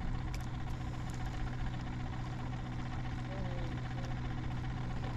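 An engine running steadily: a low, even hum with a few faint ticks over it.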